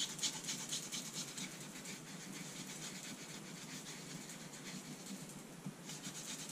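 A hand rubbing quickly back and forth over a card panel covered in gilding flakes, working the loose excess flakes off: soft scratchy strokes, several a second, strongest near the start and again near the end, fainter in between.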